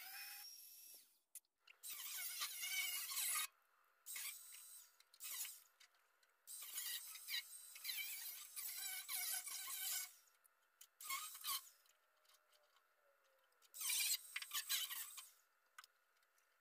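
Cordless angle grinder with a cut-off wheel slicing through the rusted sheet steel of a 1954 VW Beetle's heater channel and lower quarter panel, in about five separate cuts of one to three seconds each, its whine wavering as the disc bites into the metal.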